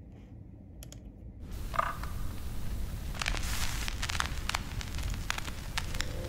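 Typing on a laptop keyboard: soft, irregular key clicks over a light rustle of hands and sleeves, starting about a second and a half in.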